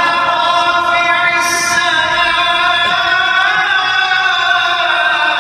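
Islamic prayer recitation by a single man's voice, chanted in long held notes that slowly rise and fall in pitch without a break.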